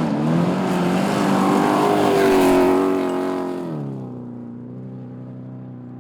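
Rally car engine at high revs under full throttle, its pitch climbing through the gears. At about three and a half seconds the note drops in pitch and fades as the car passes and pulls away.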